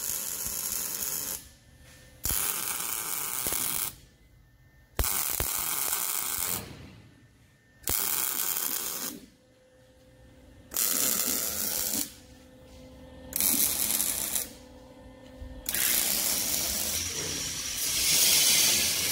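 MIG (wire-feed) welder laying a series of short welds on clamped steel plate: about seven bursts of steady hissing, each one to three seconds long, with pauses of about a second between them. The last burst is the longest.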